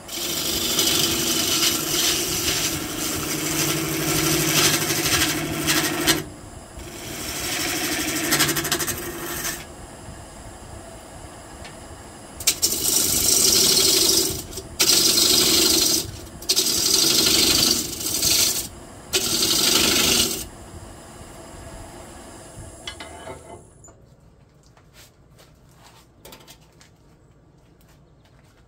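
Turning gouge cutting a spinning white pine bowl blank on a wood lathe: two long cuts, then a run of four or five shorter cuts, with the lathe running more quietly between them. A few seconds before the end the lathe stops and the sound drops away.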